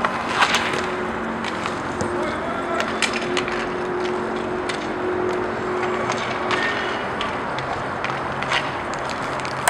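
Inline roller hockey play: a steady rolling hiss of skate wheels on the rink floor, broken by scattered sharp clacks of sticks and puck.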